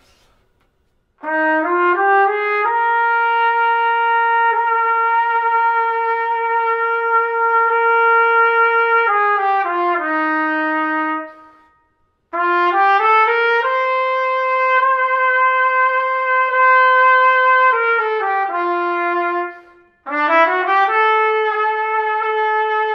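A solo trumpet plays three phrases, each a stepwise scale up from F to C, a long held top note, and steps back down, with short breaths between. This is the upside-down bends exercise: the player keeps buzzing the top note while fingering a half step above it.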